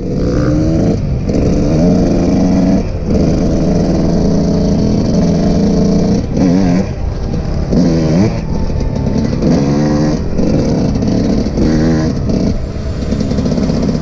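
Dirt bike engines being ridden hard, revving up and down as the throttle opens and closes and the gears change, with repeated quick rises in pitch.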